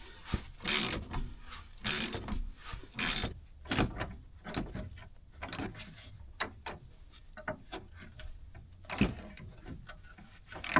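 Hand ratchet wrench working a fastener on the truck's front suspension: a few short ratcheting strokes, then scattered sharp clicks and clinks of metal on metal, with a stronger burst about nine seconds in.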